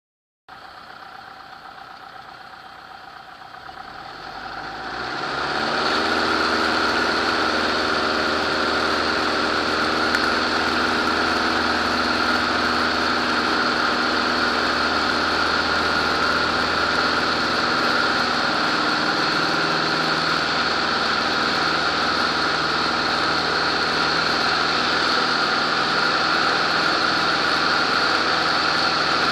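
Zenair CH-300's single piston engine and propeller heard from inside the cockpit, running at low power and then opening up to full power about four to six seconds in. It then holds steady at takeoff power through the takeoff roll and the climb-out.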